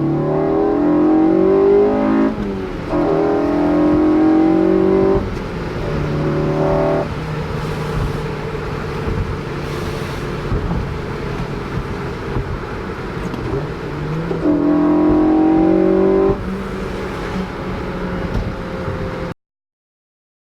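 Honda Civic Si's four-cylinder engine with an aftermarket Invidia N1 exhaust, revving up in four rising pulls with steadier running between them. The sound cuts off suddenly near the end.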